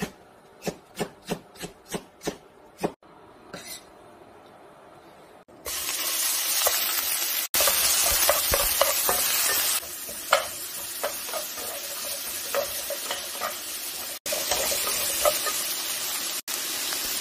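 A knife chopping green onion on a wooden cutting board in a quick run of strokes, about three or four a second, for the first three seconds. From about five and a half seconds in, oil sizzles loudly in a frying pan as sliced green onions and then onion pieces are stirred with a spatula, with light taps and scrapes of the spatula on the pan.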